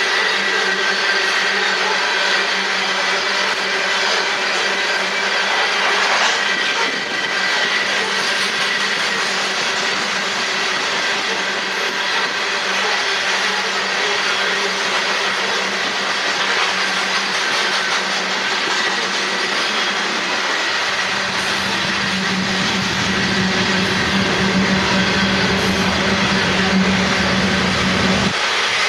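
Coal train hopper cars rolling past at trackside: a steady rumble of wheels on rail with some clickety-clack and a faint, steady high tone over it. A deeper low rumble comes in about two-thirds of the way through and cuts off just before the end.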